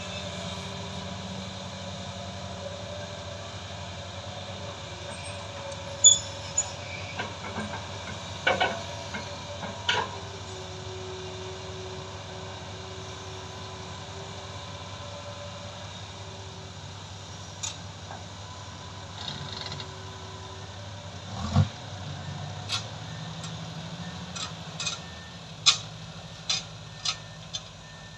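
Hydraulic excavator's diesel engine running steadily while it digs, with scattered metallic clanks and knocks from the bucket and machinery. In the second half a second diesel joins as the Isuzu dump truck pulls up alongside.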